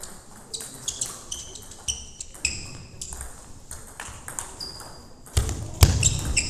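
Table tennis rally: the plastic ball clicks off bats and table about twice a second, each hit with a short high ping. Near the end come heavy thuds of a player's shoes on the hall floor as he lunges and runs after the ball.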